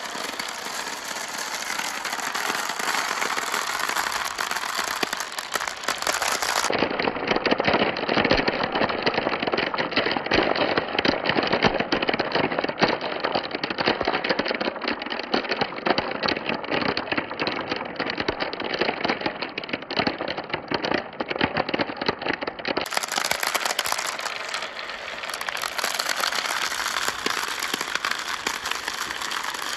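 Marbles rolling and clattering along a marble run, a dense stream of small clicks. It gets louder and busier about seven seconds in and eases back a few seconds before the end.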